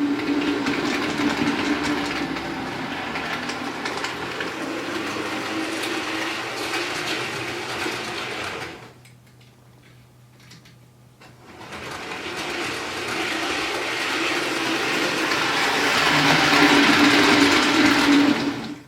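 Bachmann OO gauge Class 158 DMU model running on track: its motor hums and its wheels rattle over the rails, running smoothly now that its broken solder joints have been repaired. The sound drops away about nine seconds in, builds back up over several seconds, is loudest near the end and cuts off suddenly.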